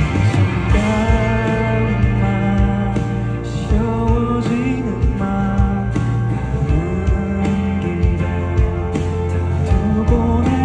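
Live band music played through a concert sound system: a mid-song passage in a rock style, with a held melody line that slides between notes over guitar, bass and drums.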